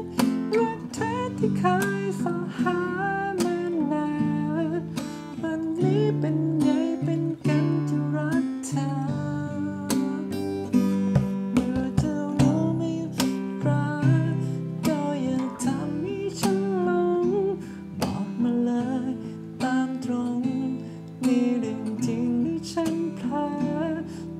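A man singing a slow Thai pop song while strumming an acoustic guitar.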